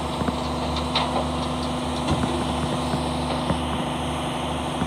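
Front-loader garbage truck's diesel engine idling steadily, a constant low hum, with scattered light knocks.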